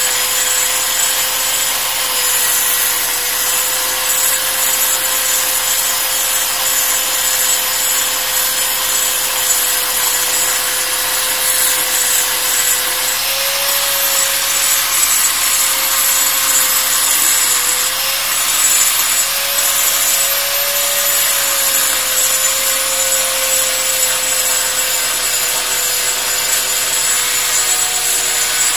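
Handheld electric angle grinder with a 4-inch cup wheel dressing the face of an atta chakki millstone: a steady motor whine over harsh grinding noise, the pitch wavering slightly in the middle as the wheel is pressed into the stone.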